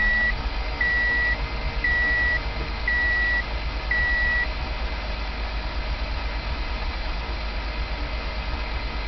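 Car warning chime beeping at a steady pitch about once a second, five times, then stopping about four and a half seconds in, over a steady low rumble.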